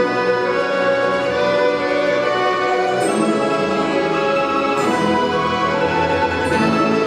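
Russian folk-instrument ensemble playing a tune in full chords at an even loudness, with chord changes about three seconds in and again near the end.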